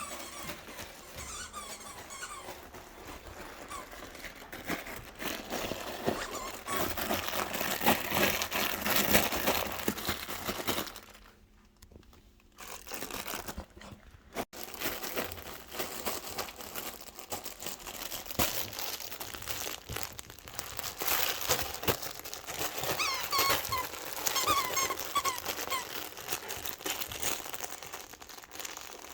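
A Cane Corso chewing a plush chip-bag dog toy: continuous crinkling and rustling, with short squeaks from the toy's squeaker a few times, and a brief lull about eleven seconds in.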